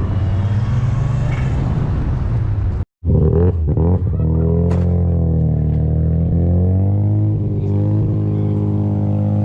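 A car engine running at fairly steady revs, its pitch wavering gently up and down. The sound drops out for an instant about three seconds in, then carries on.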